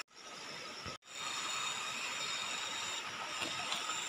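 Steady rushing of shallow river water, with a few faint steady high tones over it. The sound cuts out briefly twice in the first second.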